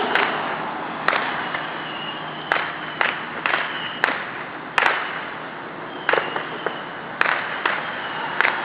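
Small fireworks going off, about ten sharp pops and cracks at irregular intervals over a steady hiss.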